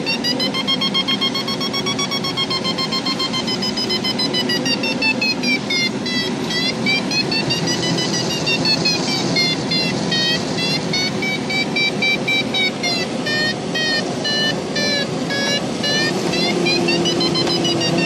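Glider's electronic audio variometer in the cockpit of a PZL Puchacz: a buzzy tone that rises and falls in pitch and breaks at times into quick beeps, its pitch following the glider's rate of climb or sink. Under it runs the steady rush of airflow over the canopy.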